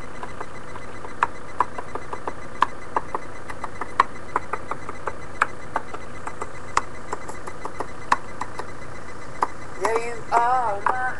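Faint playback from a cell phone's speaker held up to the microphone: a string of irregular light clicks over hiss, then a few short high-pitched vocal sounds about ten seconds in.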